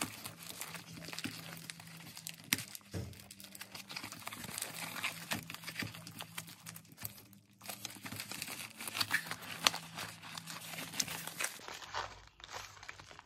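Plastic packaging crinkling and crackling as a product in a plastic sleeve is handled and pushed into a poly bubble mailer, with a brief lull about halfway through.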